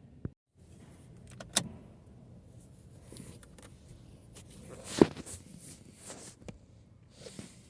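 Scattered clicks, knocks and rustling of things being handled, with the loudest a sharp knock about five seconds in.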